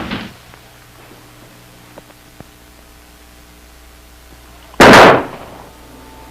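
A single loud gunshot about five seconds in, dying away over about half a second, after two light clicks a couple of seconds earlier.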